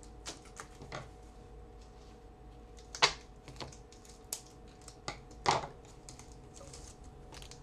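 Trading cards being handled and flipped through: scattered light clicks and taps, with two louder snaps about three seconds and five and a half seconds in.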